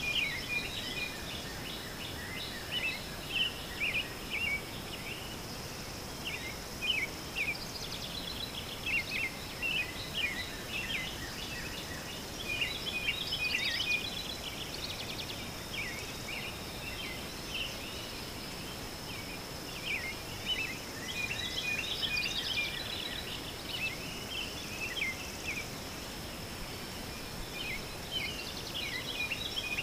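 Many small birds chirping and twittering in scattered clusters over a steady background hiss, with a faint constant high-pitched tone underneath.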